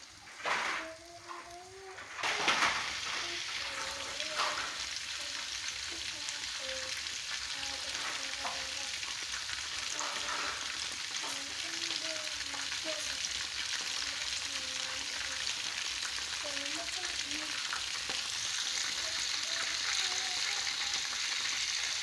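Pieces of meat frying in oil in a metal wok: a steady sizzling crackle that gets a little louder and brighter near the end. Two short louder sounds come in the first three seconds.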